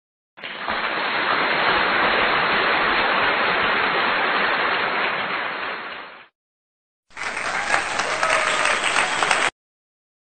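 A crowd applauding for about six seconds and fading out, then after a short gap a second, briefer burst of crowd noise that stops abruptly.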